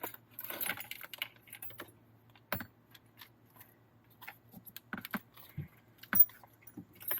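Small parts and tools of an RC truggy kit clicking and rattling as they are handled during assembly: a scattering of short sharp clicks, the loudest about six seconds in.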